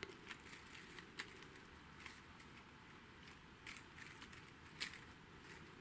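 Faint, scattered clicks and crackles of sequin maple leaves and their wire stems being handled and bent into shape, a handful of light ticks with the strongest near the end.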